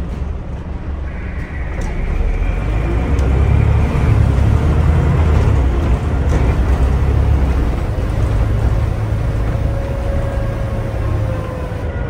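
Scania OmniDekka double-decker bus heard from its upper deck while on the move: a low engine and drivetrain rumble that builds about two seconds in and eases a little near the end, with a faint whine above it.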